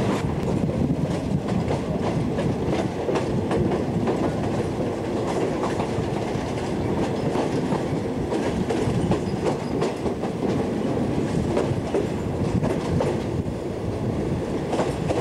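Passenger train rolling out of a station, its wheels clicking and clacking irregularly over rail joints and points over a steady rumble, heard from the carriage's open window.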